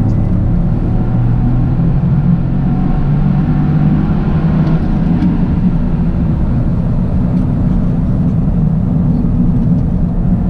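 Toyota GR Yaris three-cylinder engine running steadily while the car is driven, its note rising a little in the first few seconds and then holding, over a steady low rush.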